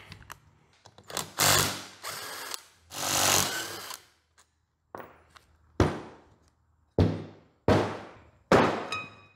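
Ryobi cordless driver run in three short bursts, backing out the rear case bolts of an A/C scroll compressor. Then four sharp metal clunks about a second apart, the last ringing briefly, as the compressor's metal housing is worked apart on the bench.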